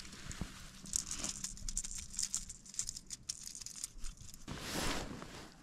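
Crinkly rustling with many light clicks as a caught largemouth bass is handled out of a landing net, with jacket fabric brushing close to the microphone. A short swell of hissing noise follows about four and a half seconds in.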